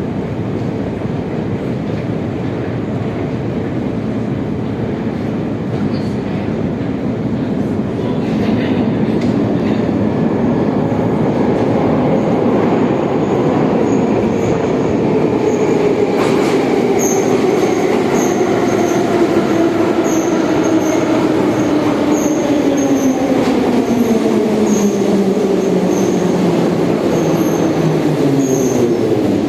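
Metro train rolling in the carriage and braking: its rumble carries a motor whine that falls steadily in pitch through the second half, as the train slows to a stop near the end. Faint high ticks repeat about once a second while it slows.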